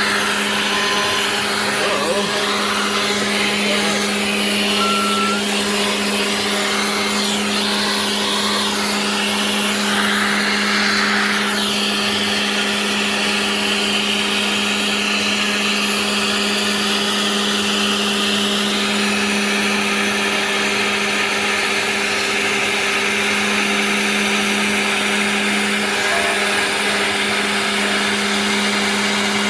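Genmitsu 3020 PRO MAX CNC router spindle running at a steady high speed with a constant hum, while the bit cuts the workpiece with a hissing, grinding noise that shifts as the toolpath changes.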